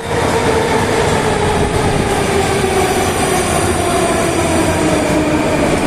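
Metro train pulling in and slowing at the platform, with wheels running loudly on the rails. Over this noise a motor whine falls steadily in pitch as the train brakes.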